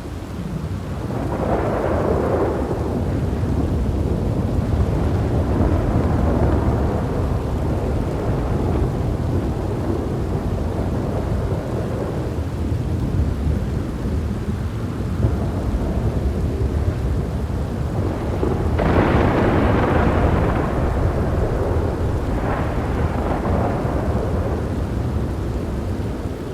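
Thunderstorm: long rolling thunder rumbling over steady rain. A sharper, louder thunderclap breaks in about two-thirds of the way through, followed by another a few seconds later.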